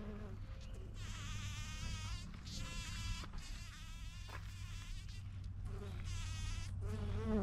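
Bumblebee buzzing as it forages in a pink wild rose flower: a steady low hum. A wavering, higher-pitched sound comes and goes twice over it.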